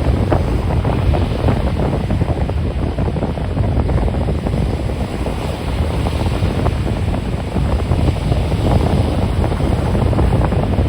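Ocean surf washing in steadily, with heavy wind buffeting the microphone and adding a low rumble.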